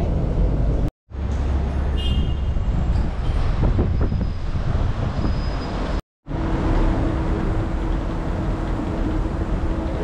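City street traffic noise, a steady rumble of passing vehicles, broken by two brief silent gaps about one second and six seconds in. A steady low hum runs under the traffic after the second gap.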